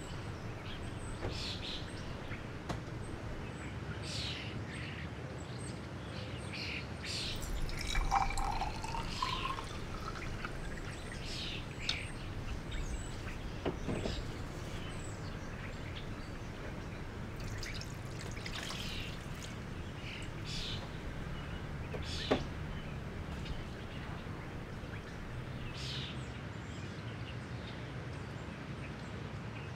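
Liquid poured from a plastic jug into a glass graduate, its pitch rising over about two seconds as the vessel fills, about eight seconds in. Under it runs a low steady hum, with short high chirps scattered throughout.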